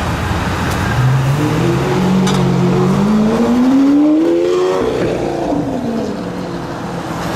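A supercar's engine accelerating hard past, its pitch climbing through a gear or two and then dropping away as the car goes by.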